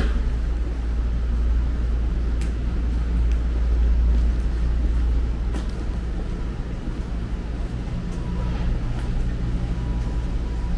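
City street noise: a steady low rumble of traffic, with a faint engine hum in the second half, a few light clicks and faint voices in the background.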